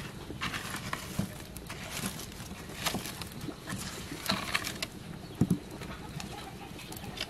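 Wood fire crackling and popping irregularly under a bird roasting on a bamboo spit, with two louder pops close together a little after halfway.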